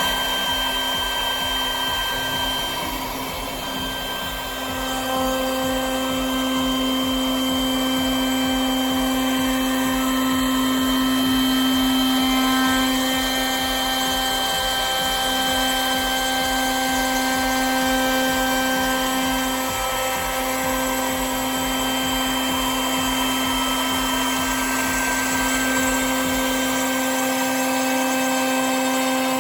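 CNC router spindle running at a constant speed while milling, a steady pitched tone with higher overtones over a noisy cutting hiss.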